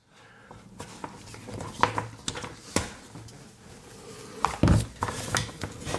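Light clicks and knocks of a USB-C charging cable and plug being handled, with a louder knock about four and a half seconds in.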